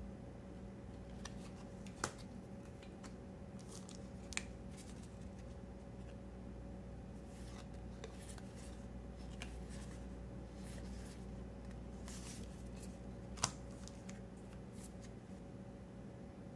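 Trading cards being slid and flipped one behind another in the hands, making short, slick rustles, with three sharp clicks scattered through, over a faint steady hum.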